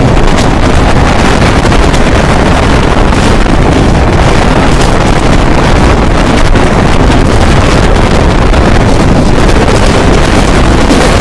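Loud, steady wind buffeting the microphone over the running rumble of the Chitra Express passenger train at speed, heard from a phone held out of a coach window.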